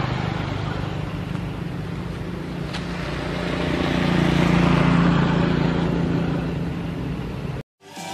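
A road vehicle's engine running with a steady hum over background hiss. It grows louder about four to five seconds in, then eases off, and cuts off abruptly near the end.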